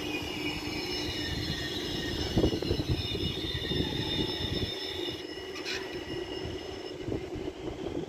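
RET Alstom Citadis low-floor tram running past on street track: a steady rumble of wheels on rail under several high whining tones, some gliding down in pitch, which fade out after about five to seven seconds. There is a single knock about two and a half seconds in.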